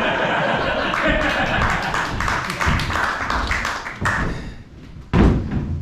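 Audience clapping with voices mixed in, dying away after about four seconds, then a single loud thump a little after five seconds in.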